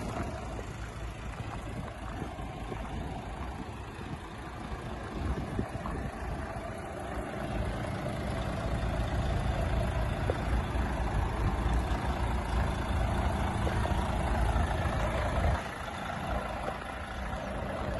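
Volvo FH 460 truck's diesel engine idling steadily, dropping suddenly in level near the end.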